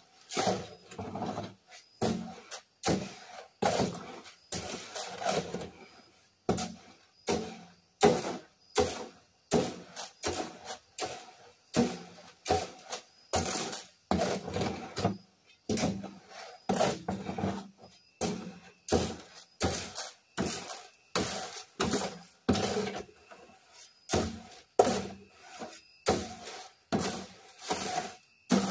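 A hammer striking nails into wooden shed framing: a steady run of sharp blows, about one to two a second.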